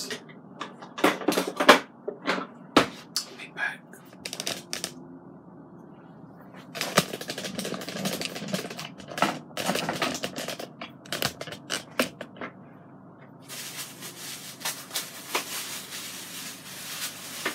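Plastic grocery bag and the film wrap of a ground beef roll crinkling and rustling as the roll is handled and cut open, with sharp clicks and taps in the first few seconds.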